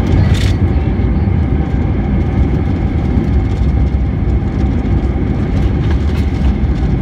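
Airbus A320 cabin on the runway: loud, steady low rumble of the wheels and engines as the airliner rolls along, with a short crackle just after the start.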